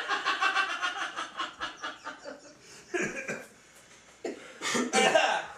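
Men laughing hard: a run of rapid, pulsing laughs that fades after about a second and a half, then more short bursts of laughter near the middle and end.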